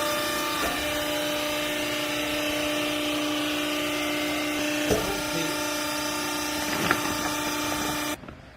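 Vertical downstroke hydraulic clothing baler's motor and pump running with a steady hum, with two knocks about five and seven seconds in, then cutting off suddenly near the end.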